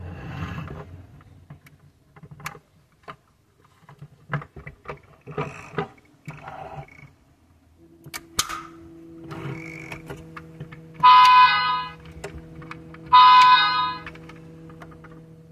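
Toy tow truck's battery sound module: a few seconds of small clicks as the model is handled, then a steady electronic hum, over which two loud toy horn honks of about a second each sound about two seconds apart.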